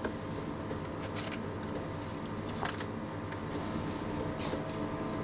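Steady mechanical hum of room equipment, with a few faint clicks.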